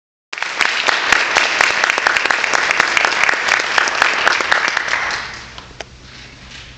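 Audience applauding, the clapping dying away about five seconds in, with a last lone clap or two after it.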